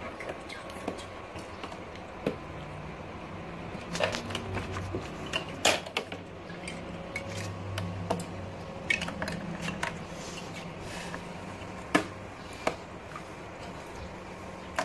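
Scattered light clicks and knocks of hard plastic as toy fishing rods and hooks tap against plastic fish and the plastic tub. The sharpest knock comes about twelve seconds in.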